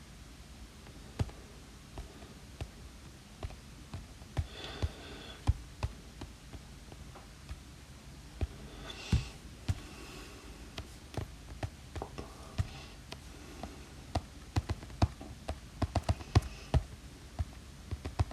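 Stylus tip tapping and sliding on an iPad Pro's glass screen while drawing: irregular light clicks, with a few short scratchy strokes and a quick run of louder taps near the end.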